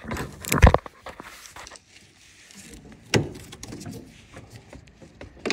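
Knocks and clicks of metal hydraulic hose couplers being handled and pushed onto a tractor loader's quick-connect fittings, with a sharp loud knock about half a second in and a second one a little after three seconds.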